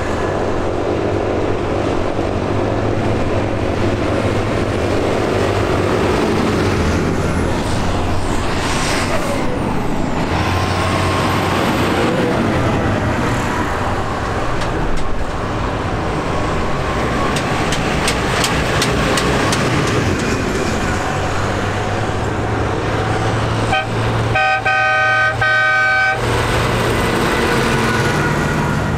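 Tractor diesel engines running as tractors drive along a road. A vehicle horn sounds once for about two seconds near the end.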